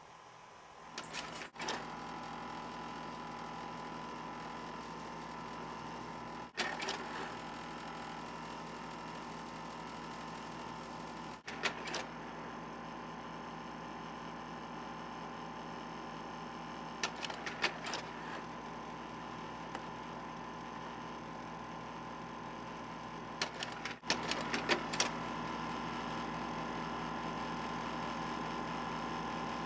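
A projector running with a steady mechanical whir. Sharp clicks and clacks come every few seconds, in small clusters, about a second in and several times after.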